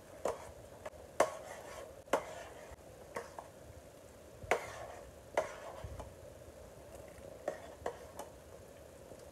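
Metal spoon knocking and scraping against the side of a metal pot while stirring a thick mix of rice balls, sago pearls and fruit. Sharp, irregular clinks come roughly once a second over a faint steady background noise.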